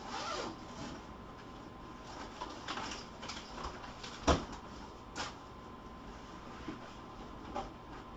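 Faint rustling and light clicks of things being handled and moved, as someone rummages for a laptop power supply, with one sharp knock about four seconds in.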